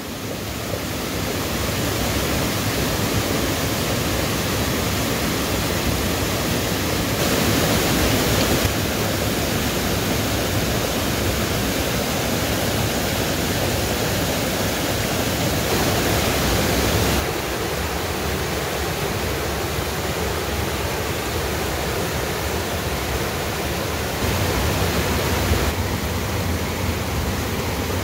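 Small mountain-creek waterfalls and cascades, water rushing and splashing into pools in a steady roar. It fades in at the start, and its tone shifts abruptly several times as one cascade gives way to another.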